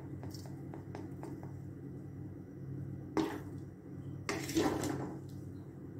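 A spoon stirring and scraping through a crumbly mixture of roasted wheat flour, fried edible gum and sugar. There are a few light clicks, a short scrape about three seconds in and a longer one about a second later, over a steady low hum.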